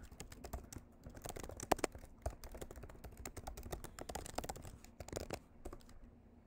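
Typing on a computer keyboard: a quick, irregular run of key clicks that stops about a second before the end.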